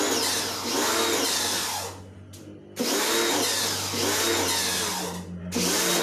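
Electric pressure washer spraying down a window-type aircon unit, running in three stretches with short pauses between, a motor hum under the rush of the spray.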